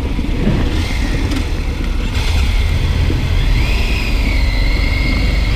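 Triumph Tiger 900 Rally Pro's three-cylinder engine running, with a deep steady rumble.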